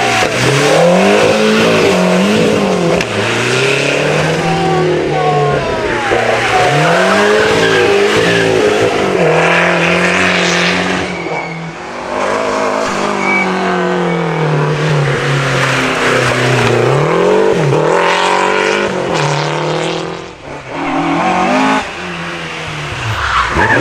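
Historic rally car engines revving hard and dropping back through quick gear changes as they take a tight hairpin on tarmac, the pitch rising and falling again and again, with some tyre squeal. Near the end it is a Ford Escort Mk2 rally car's engine revving through the bend.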